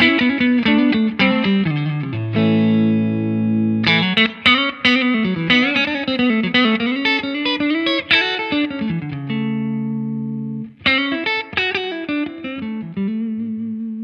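Strat-style electric guitar played through a Laney Lionheart Foundry valve combo amp with its Tone knob turned up to +2. Quick picked single-note runs are broken twice by a held chord that rings out, about two seconds in and again near ten seconds.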